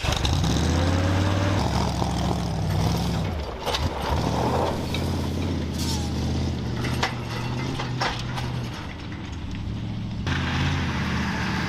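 Ford 460 big-block V8 in a shortened 1979 Ford one-ton truck, revving up in the first second and then running at a steady pace as the truck drives off. A few sharp clacks sound in the middle.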